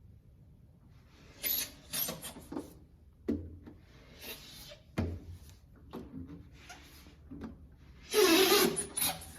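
A series of irregular scraping and rubbing strokes of varying length, with a louder, longer rasp about eight seconds in.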